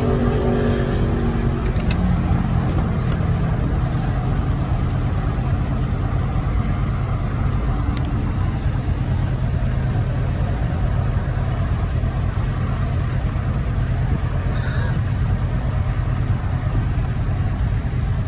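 Steady motor-vehicle road noise: a low engine-and-road rumble with a hiss of traffic. A pitched hum fades out in the first couple of seconds.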